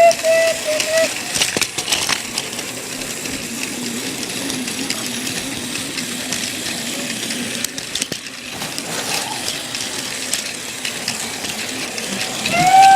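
Battery-powered Thomas toy train running along plastic track, a steady small-motor whir with a few sharp clicks about two seconds in.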